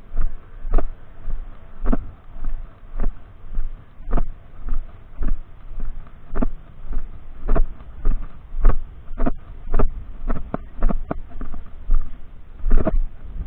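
Footsteps at a steady walking pace, about two a second, every other step louder.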